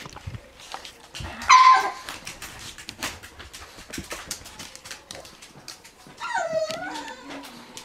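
Four-week-old puggle puppies playing: a short, high yelp about a second and a half in, and a longer wavering whine near the end, over scuffling and small clicks.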